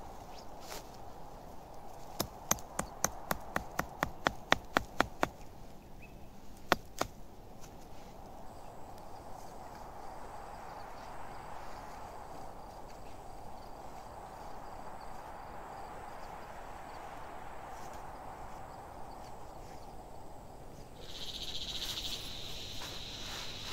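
About a dozen quick, sharp knocks, roughly three a second, then one more a moment later: a wooden tent stake being driven into the ground for a flysheet guy line. A high insect buzz starts near the end.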